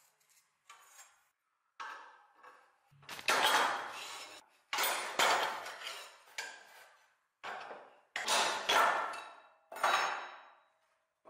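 Cut pieces of steel bar being stacked and set down on a wooden workbench: a string of metal clinks and clacks, faint at first and then louder from about three seconds in.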